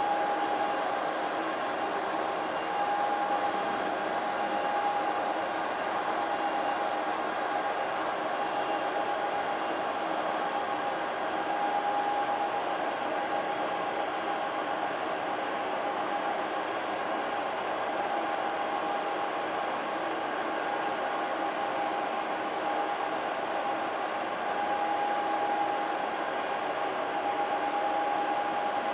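Multirotor drone's propellers whirring steadily, a constant hiss with a steady mid-pitched whine that wavers a little.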